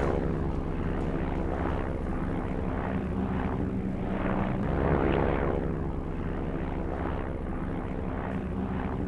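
Propeller aircraft engine droning steadily overhead, its tone swelling and easing slightly.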